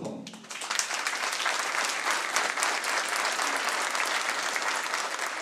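Audience applauding, many hands clapping together; the applause starts abruptly about a third of a second in and holds steady.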